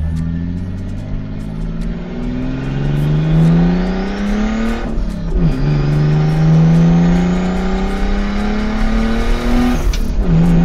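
Turbocharged RB20DET straight-six in a Nissan 240SX pulling hard through two gears, its pitch climbing and then dropping sharply at an upshift about halfway through and again near the end. A high turbo whistle rises along with the revs.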